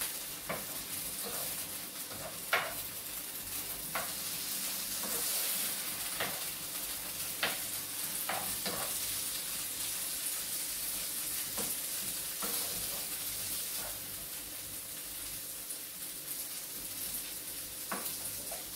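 Green beans and onion sizzling as they fry in oil in a pan, with a utensil knocking and scraping against the pan now and then as they are stirred.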